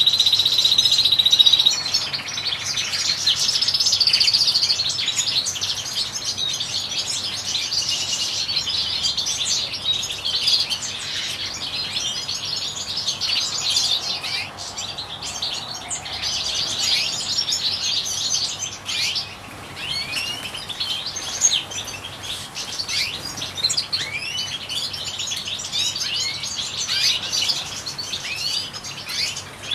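European goldfinches singing: a continuous run of quick, high twittering notes, with a brief held steady whistle right at the start and another a few seconds in.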